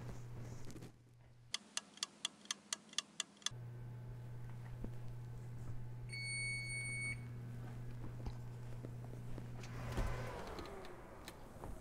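Frigidaire Gallery wall oven's electronic control beeping: a quick run of about eight short beeps, then a single longer beep a few seconds later, as the kitchen timer runs out. A steady low hum runs underneath, and near the end there is a thump and a creak as the oven door is pulled open.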